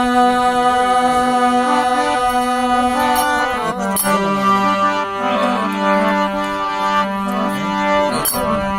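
Instrumental introduction to a Marwari song: long held, organ-like chords over a low drone, moving to a new chord about four seconds in, with a few light percussive strikes.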